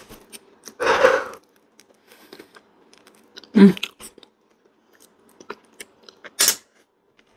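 Wet mouth sounds of a person eating soft, creamy durian flesh: chewing with small lip smacks, a few short louder mouth noises, and a sharp suck as she licks her fingers about six and a half seconds in.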